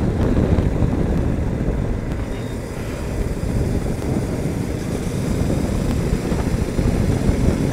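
Wind rushing and buffeting over a helmet-mounted phone microphone on a KTM RC 200 motorcycle moving at highway speed, with the bike's engine running underneath. The low, rough rush stays loud throughout and eases a little partway through.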